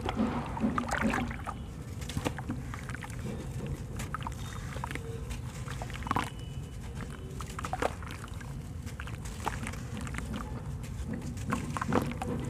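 Hands sloshing in a basin of water, then crumbling lumps of dried sand-cement so the grains pour and splash into the water, with scattered crunches and small splashes.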